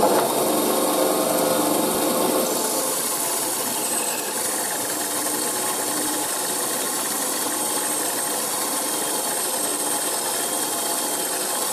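Small Silverline benchtop bandsaw cutting through a 3-inch-thick block of wood, running steadily under heavy load. The saw is a bit underpowered for the cut and is pushed to its limit.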